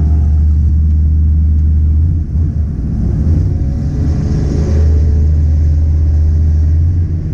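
Car engine and exhaust droning steadily while driving, easing off briefly about two seconds in and then picking back up.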